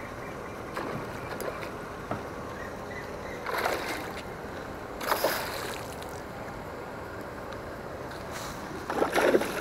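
Hooked fish splashing at the surface of the pond as it is fought on a bent rod: three short splashes, about a second and a half and then four seconds apart, the last the loudest.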